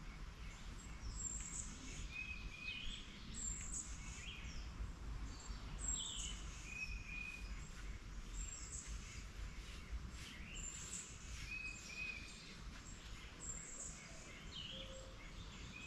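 Birds singing, short high chirps and slurred notes repeated every couple of seconds, over a low steady rumble.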